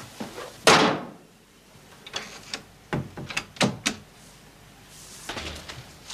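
A door shuts with a loud bang just under a second in, followed about two seconds later by a few shorter sharp knocks and clicks.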